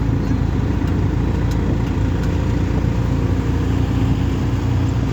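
Auto rickshaw engine running steadily, a continuous low drone heard from inside the moving three-wheeler.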